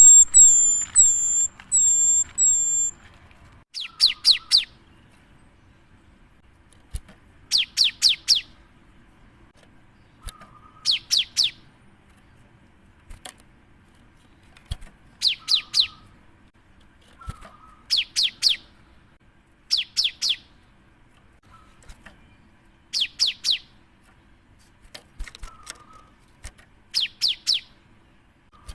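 Cinereous tit (gelatik batu) singing. It opens with a run of five high whistled notes, each ending in a downward hook, then gives short bursts of three or four rapid high notes every two to four seconds.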